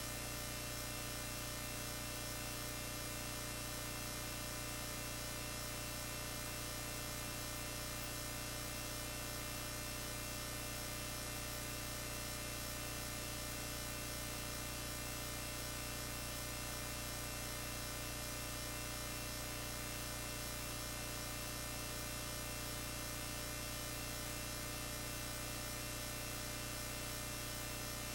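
Steady electrical hum with a buzz, unchanging throughout.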